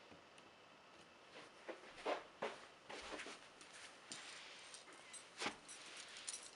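Steel chain and handcuffs being handled on carpet, clinking and jangling irregularly from about a second and a half in.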